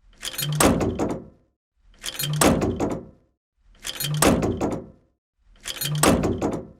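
A tank door closing, the same sound repeated four times about every 1.8 seconds. Each time it swells into a rush and ends in a cluster of sharp clunks as it shuts.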